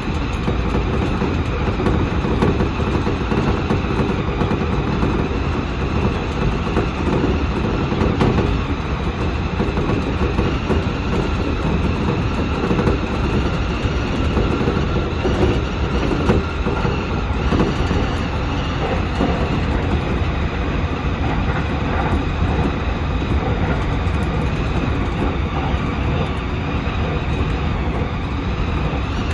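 Seibu 6000 series electric train running steadily at speed, heard from inside the driver's cab: a continuous low rumble of wheels on rail with a faint steady whine above it.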